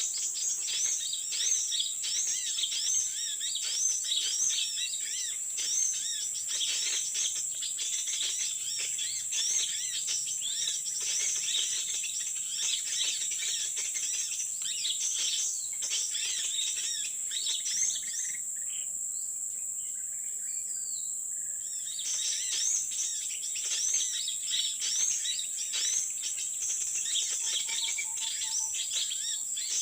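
Small birds chirping rapidly and almost without pause, over a steady high-pitched insect drone. The chirping drops away briefly about two-thirds of the way through.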